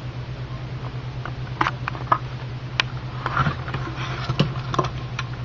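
Vivarium plants rustling and brushing against the camera: scattered light clicks, taps and crackles starting about a second in, over a steady low hum.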